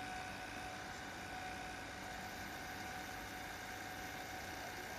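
Vintage Toshiba GV-201C open-reel video tape recorder running in playback: a steady hiss and hum with a couple of faint, constant high whines.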